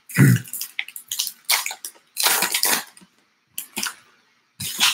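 Trading-card pack wrappers being torn open and crumpled by hand, with cards shuffled between the hands, heard as a string of short crinkling rustles.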